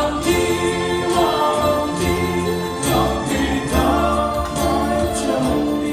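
Music: a song with singing voices over a steady low beat.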